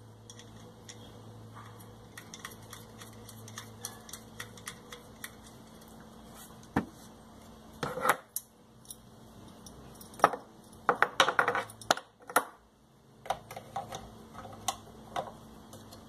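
Small metal parts clinking and ticking as a washer and nut are fitted by hand onto a vacuum-cleaner motor shaft against its metal disc, with louder clinks about eight seconds in and a busy run of them from about ten to twelve seconds.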